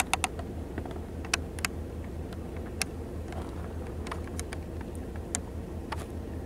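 Wildfire burning through grass: irregular sharp crackles and pops over a steady low rumble.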